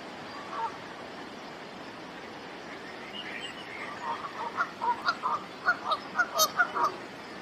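Geese honking in a quick run of short, loud calls, starting about four seconds in and lasting about three seconds, over a steady background rush of water.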